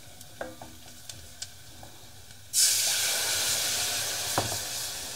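Water poured into a hot stainless saucepan of fried onion and flour roux: a sudden loud hiss and sizzle about two and a half seconds in that slowly dies down, after a few light taps of a wooden spoon on the pan.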